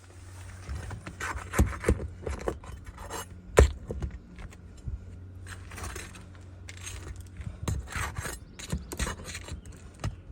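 Hand tools working a damaged shingle loose so it can be replaced: irregular scraping and rasping with metallic clinks, and one sharp knock about three and a half seconds in.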